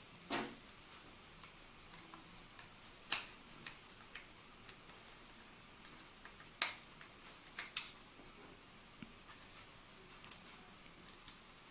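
Irregular small clicks and taps of a video doorbell's plastic housing being handled, the sharpest about three and six and a half seconds in.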